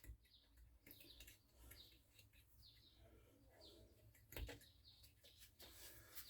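Near silence with faint bird chirps, short falling notes repeating every second or so, and one soft click about four and a half seconds in.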